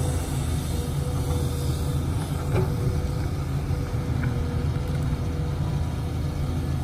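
Diesel engine of a Matador ME210LC crawler excavator running steadily with a low rumble while the bucket digs into a soil pile, a thin steady tone running above the rumble. One short knock comes about two and a half seconds in.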